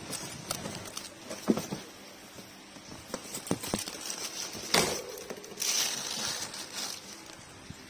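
Plastic wrapping and cardboard fan packaging being handled: irregular rustling and crinkling with a few sharp knocks, the loudest knock a little past the middle, followed by a burst of rustling.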